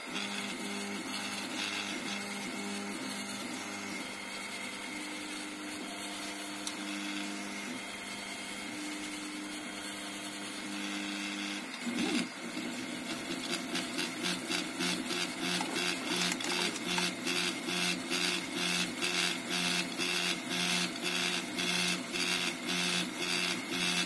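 Home-built HyperCube CoreXY 3D printer printing: its stepper motors hum in tones that shift in steps as the print head moves, over the steady whir of the part-cooling fan. About halfway through, the motion changes to a quick, even back-and-forth rhythm.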